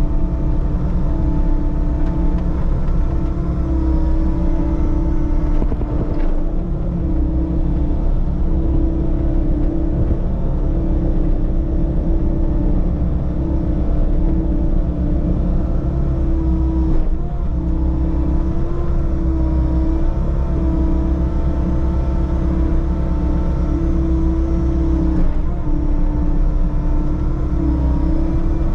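Diesel engine of a compact construction machine running steadily at working speed, with a low rumble and a strong hum. Its note dips briefly a few times as the load changes.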